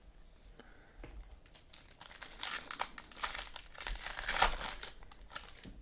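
Crinkly trading-card packaging being handled and torn, a dense crackling that builds about a second in and runs for several seconds.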